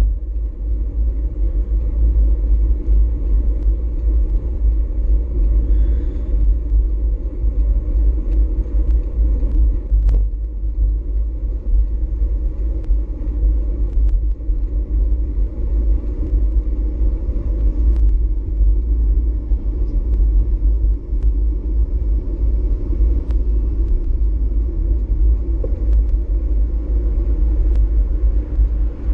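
Wind buffeting a GoPro Hero4 Session's microphone and road rumble from a moving bicycle: a steady, loud rumble with scattered light clicks.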